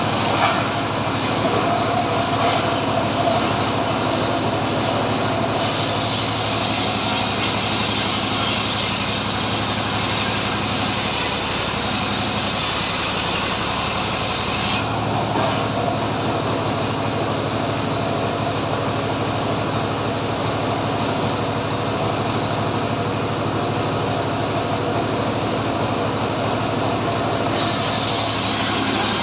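Homemade engine-driven log saw (gergaji srekel) running steadily while ripping a teak log, with a continuous engine drone under a cutting hiss that grows and fades a few times.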